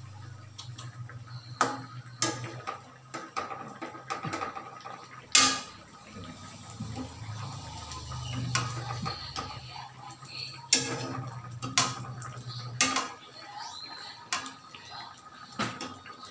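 Metal ladle scooping and pouring coconut milk over fish in a metal pan, with liquid splashing and sharp clinks of the ladle against the pan every few seconds, the loudest about five seconds in.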